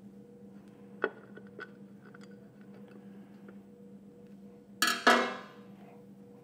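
Metal clanks from handling the surface grinder's wheel guard and hand tools: a light click about a second in, then two sharp clanks just before five seconds that ring briefly. A steady low hum underneath.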